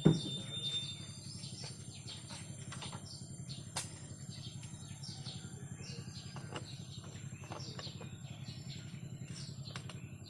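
Birds chirping over a steady low hum, with a sharp knock right at the start and a lighter click about four seconds in.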